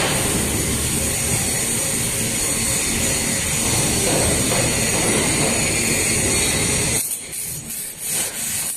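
Steady industrial noise of robotic welding: a dense crackle and hiss over a low rumble, which drops and turns patchy about seven seconds in.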